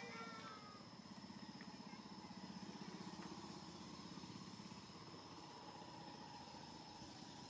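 A faint small engine running steadily at idle, with a thin, steady high tone over it. At the very start a baby monkey gives a short, falling squeak.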